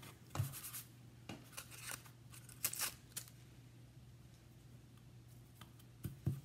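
Thin gold leaf and its tissue backing paper rustling and crackling as fingers lay it on and press it down onto a tacky gilded frame: a few short, soft crackles and taps scattered through, over a faint steady hum.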